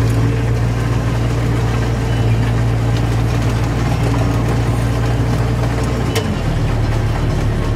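New Holland T7030 tractor's six-cylinder diesel engine running steadily, heard from inside the cab. About six seconds in there is a click and the engine note drops lower.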